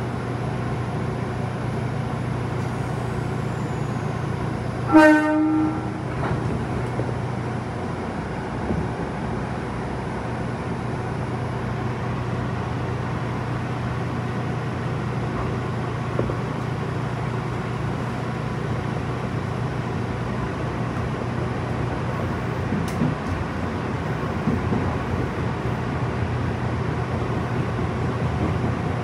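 Tobu 30000 series electric commuter train heard from inside: a steady low hum while it stands, one short horn blast about five seconds in, then running noise as it pulls away and gets under way.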